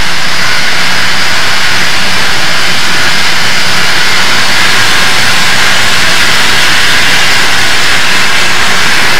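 Southern Pacific AC-11 cab-forward steam locomotive running through a tunnel, heard from the cab: a loud, steady roar with no clear exhaust beat.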